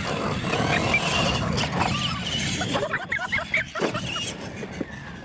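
Radio-controlled monster truck running on a dirt track, its motor and tyres making a steady rumbling noise that thins out about three seconds in.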